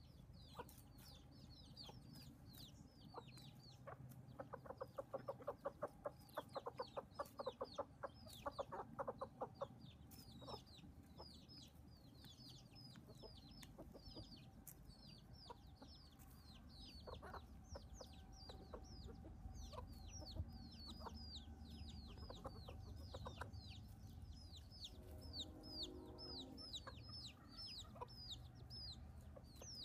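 Chicks peeping steadily, with high, falling peeps several times a second, while adult chickens cluck. A rapid run of clucks goes on for several seconds in the first third, and a lower, drawn-out call comes near the end.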